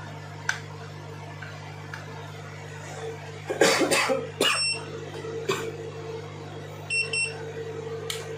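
A steady low hum runs throughout. A person coughs about three and a half seconds in, with a few light clicks, and two short electronic beeps sound near the end.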